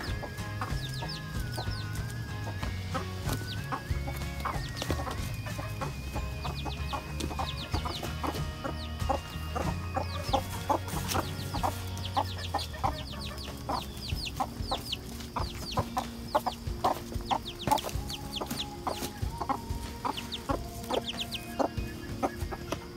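Bantam hens clucking and a young chick peeping, its short falling peeps repeated many times, over soft background music.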